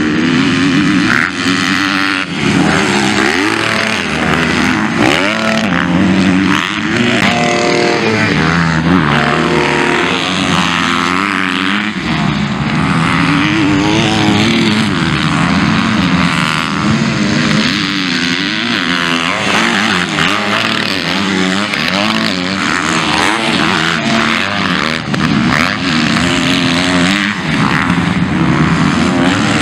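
Motocross bike engines in an MX2 race, revving up and dropping off again and again as the bikes take the track, with two or more engines overlapping at different pitches.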